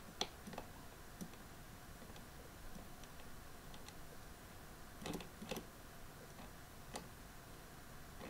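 A few faint, scattered clicks over quiet room hiss, from hands working a computer: a small cluster in the first second and a few more past the halfway point.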